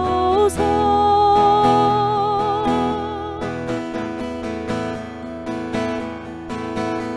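A woman holds the last sung note of a worship-song line with vibrato over a strummed acoustic guitar; her voice stops about three and a half seconds in, leaving the guitar strumming alone.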